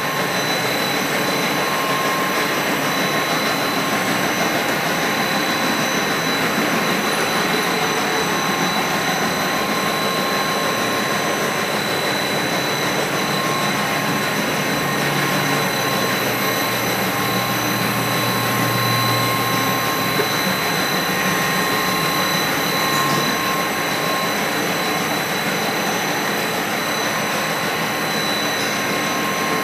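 Loud, steady machine-shop running noise: an even hiss and hum with several thin, steady high-pitched whines. A low hum swells for a few seconds midway.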